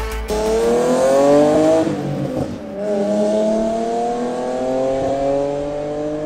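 BMW E36 323i's M52B25 straight-six, with headers and a very loud exhaust, accelerating hard. The engine note climbs, breaks briefly about two and a half seconds in for an upshift, then climbs again more slowly.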